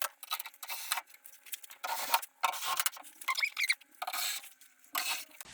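A string of short metallic scrapes and rattles as a sheet-metal patch panel is handled and screwed into place on the van body.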